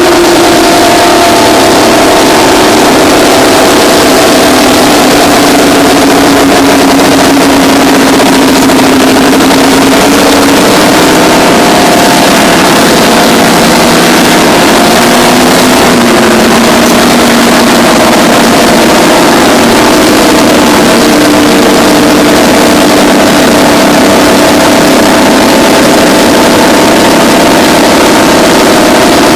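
Twin Detroit Diesel 6-71N two-stroke diesel engines of a Terex 82-80 bulldozer running loudly and steadily, their pitch wavering slightly.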